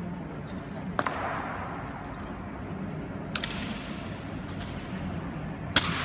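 Honour guards' rifle drill: three sharp cracks of M1 Garand rifles being slapped and grounded and boots stamping on the stone floor, about a second in, a little past three seconds and, loudest, near the end. Each crack echoes through the large marble hall, with a couple of faint ticks between.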